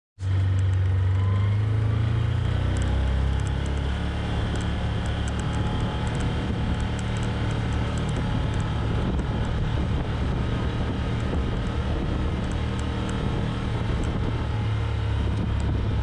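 Can-Am Commander side-by-side running steadily under way, its engine a low, even drone, with scattered faint light ticks.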